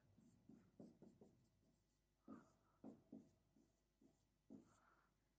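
Marker pen writing on a whiteboard: faint, short strokes in irregular bursts with pauses between them.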